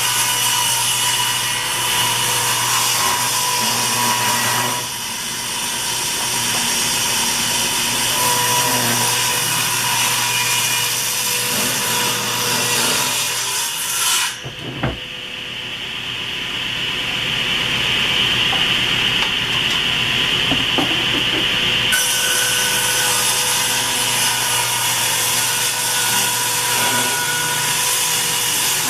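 Table saw ripping the rounded edges off 2x8 pine and fir boards: a steady run of saw blade and wood noise, with a brief dip and a sharp click about halfway through.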